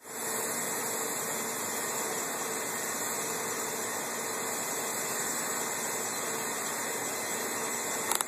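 Steady hiss of water spraying from a lawn sprinkler, even and unbroken, with a brief click just before the end.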